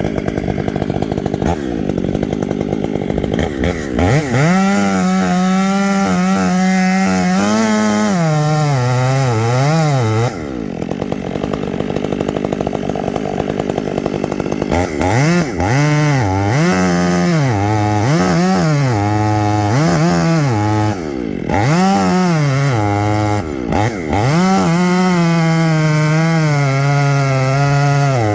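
Stihl two-stroke chainsaw cutting down a rotten poplar stump. The engine pitch repeatedly sags as the chain bites into the wood and climbs again as it frees up, with a rougher, lower stretch near the middle.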